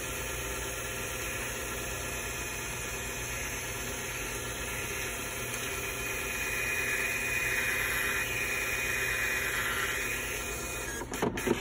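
Point-of-sale receipt printer printing a long receipt: a steady mechanical run with a thin high whine as the paper feeds out. It stops about eleven seconds in, followed by a few sharp clicks.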